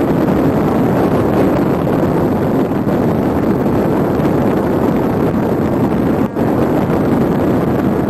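Steady rushing wind noise on the microphone, a constant roar with no clear motor tone and a brief dip about six seconds in.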